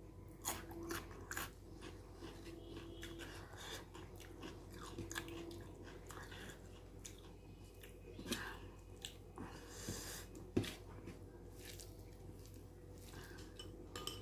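Close-up chewing and eating mouth sounds of a meal of rajma curry and rice, with wet smacks and small clicks throughout and one sharp tap about ten and a half seconds in.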